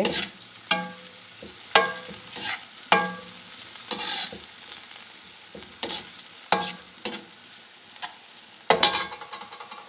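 Julienned carrots and green bell pepper sizzling in hot oil in a metal pan while their water fries off, stirred with a slotted metal spoon that scrapes and knocks against the pan about once a second. Some knocks ring briefly, and the loudest comes near the end.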